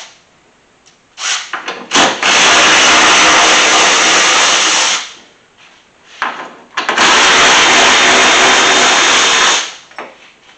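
Cordless electric ratchet running out the radiator's upper mounting bolts: two steady motor runs of about three seconds each with a short pause between, and a few clicks as the tool is set on each bolt.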